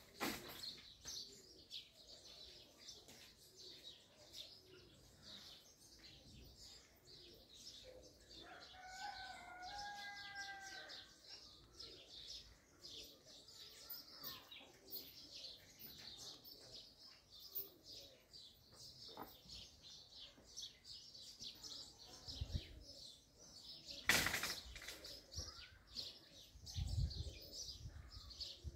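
Small birds chirping busily throughout, with a rooster crowing once about nine seconds in. There is a single loud bump near the end.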